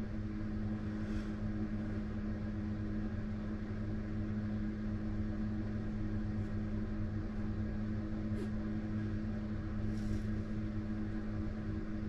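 Steady low mechanical hum with a constant pitch, joined a few times by faint, brief high-pitched sounds.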